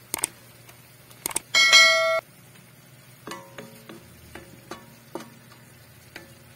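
A cooking utensil stirring and knocking against a metal wok of vegetable-and-shrimp stew: a few sharp clicks, then light knocks about two a second, each leaving a short ring. About one and a half seconds in a brief, loud ringing tone sounds and cuts off abruptly.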